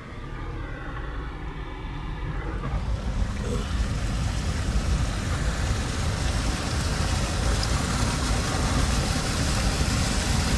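A car driving on a wet road, heard from inside the cabin: a steady low rumble of engine and road noise with a hiss of tyres on the wet surface, growing louder over the first three seconds and then holding steady.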